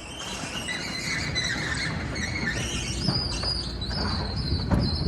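High-pitched metallic squealing, several tones that shift in pitch, over a low rumble, with a single knock near the end.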